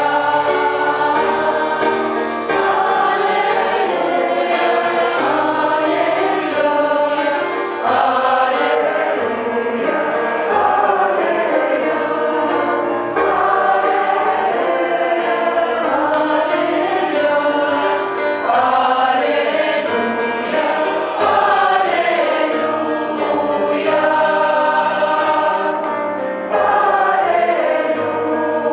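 Congregation of men and women singing a hymn together, many voices at once, steady and loud.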